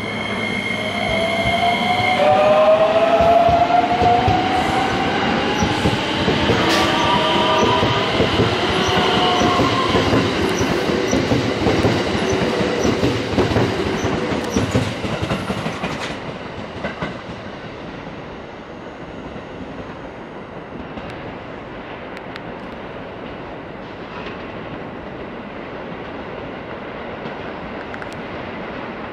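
JR West commuter electric train pulling out of the station: its motors whine, rising in pitch as it speeds up, over wheel rumble and clacking on the rails. The sound fades about sixteen seconds in, once the train has gone by.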